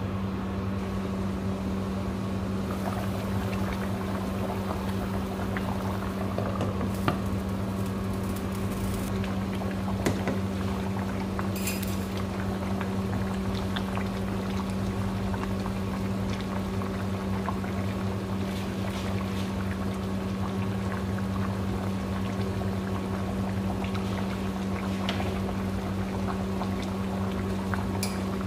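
A pot of kabsa cooking liquid bubbling steadily at the boil, over a constant low hum. Twice there is a light click.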